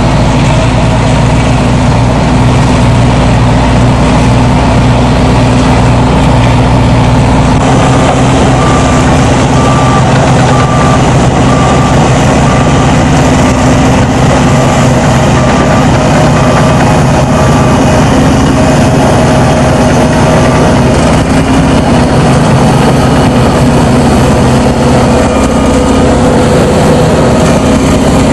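Large Caterpillar crawler bulldozer's diesel engine running loud and steady under load as its blade pushes a big heap of topsoil, roughly 60 tons. Its engine note shifts about a quarter of the way in, and an evenly repeated beep sounds for several seconds after that.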